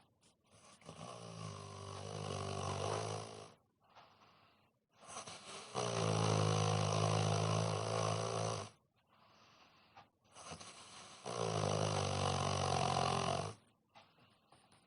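A sleeping man snoring heavily: three long, loud snores about five seconds apart, with quieter breathing between them.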